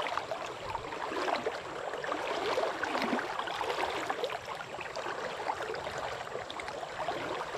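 River rapids: water rushing and gurgling steadily over shallow rocks.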